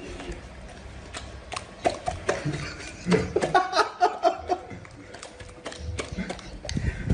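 A yellow Labrador retriever making a quick run of short, pitched vocal noises, loudest about three to four and a half seconds in, while its muzzle is being rubbed.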